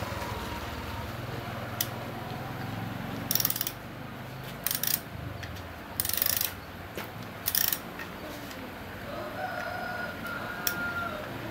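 Hand ratchet wrench clicking in short runs as it works the sprocket bolts on a motorcycle wheel hub, about four runs of rapid clicks between about three and eight seconds in.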